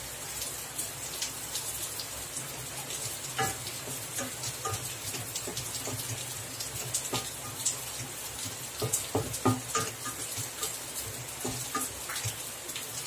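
Squid rings and thick masala gravy sizzling gently in a metal pan while a wooden spatula stirs them. Irregular clicks and scrapes of the spatula against the pan run through it, bunching up about two-thirds of the way through.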